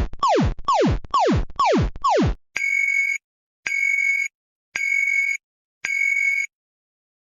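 Synthesized emergency-alert alarm tones: a quick run of falling-pitch electronic zaps, about two and a half a second. About two and a half seconds in, it switches to a series of high, steady electronic beeps about a second apart.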